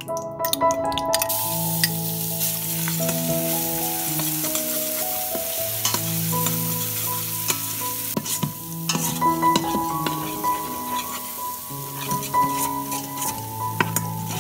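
Minced garlic frying in hot ghee, sizzling from about a second in, as it goes into a stainless steel Instant Pot inner pot, with a metal spoon stirring it and clicking and scraping against the pot.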